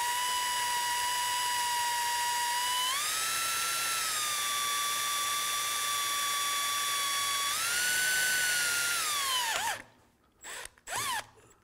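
Electric drill motor whining steadily as a greased twist bit bores through a thin metal plate. The pitch steps up twice, then the motor winds down and stops near the end, followed by two brief spins of the drill.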